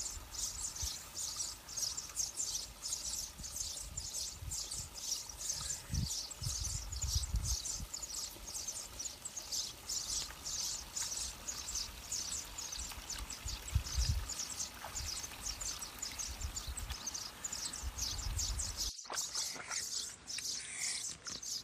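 Outdoor ambience of high-pitched chirping repeating about three times a second, with occasional low rumbles; the chirping changes abruptly near the end.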